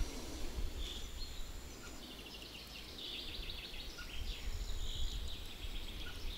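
Quiet open-air ambience: a low, unsteady rumble with faint high chirping and trilling, thickest in the middle.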